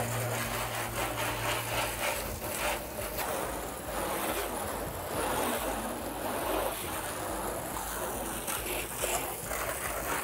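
Garden hose spray nozzle shooting a strong jet of water onto a foam-covered car's paint, rinsing the soap off in a steady spray.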